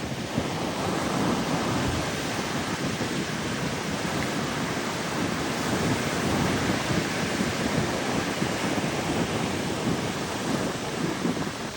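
Ocean waves washing up the shore in a steady, surging rush, with wind rumbling on the microphone.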